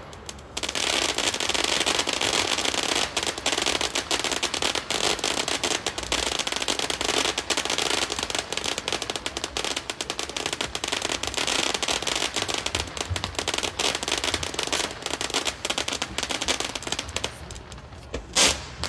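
Consumer fireworks fountain crackling: a dense, continuous rattle of rapid small pops as it sprays sparks, with one sharper, louder crack near the end.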